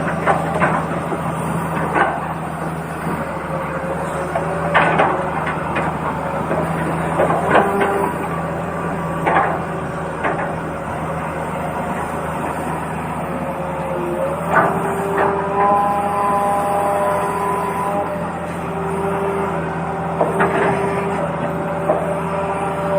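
Radio-controlled model trucks and excavator working: a steady motor hum with scattered knocks and clatter, and several steady tones of a second or two each, mostly in the second half.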